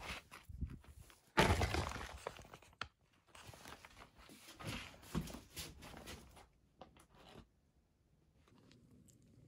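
Rustling and scuffing with a few thumps in two long stretches, then a few light clicks, then near quiet.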